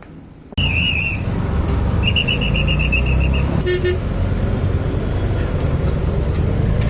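Busy road traffic with a heavy engine rumble. It starts suddenly, and vehicle horns honk over it: a warbling beep twice, then a short deeper horn blast about four seconds in.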